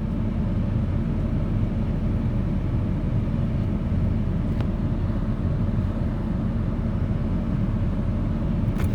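Steady low rumble, even throughout.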